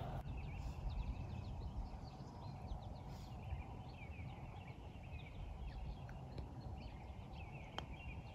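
Songbirds chirping over a low wind rumble on the microphone, with one sharp click near the end from a putter striking a golf ball.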